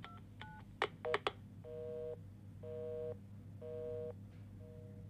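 Touch-tone telephone keypad dialing its last digits, a few sharp clicks, then a telephone busy signal: a low two-note tone beeping on and off about once a second, four times, the sign that the called line is engaged.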